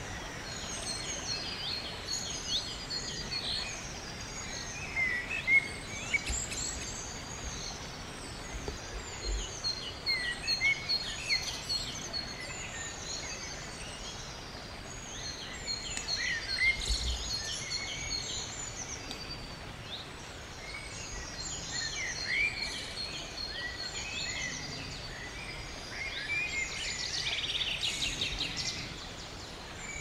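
Several wild birds singing and chirping, with repeated short whistles and twittering phrases, over the steady rush of a shallow rocky stream. A burst of rapid trilling comes near the end.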